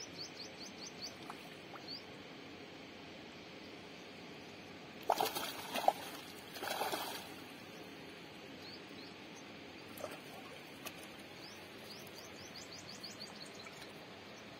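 A hooked fish thrashing and splashing at the water's surface in two loud bursts, about five and seven seconds in. Small birds chirp in quick runs of high notes near the start and again late.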